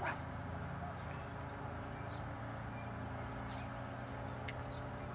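Quiet outdoor ambience by a pond: a steady low hum with a soft bump at the start, a faint high chirp about three and a half seconds in, and a small click shortly after.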